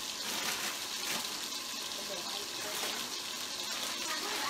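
Chicken pieces frying in a pot, a steady sizzle as they brown.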